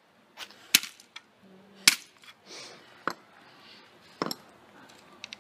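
An axe chopping at a CRT television's circuit board: four sharp strikes about a second apart, with a few lighter clicks between.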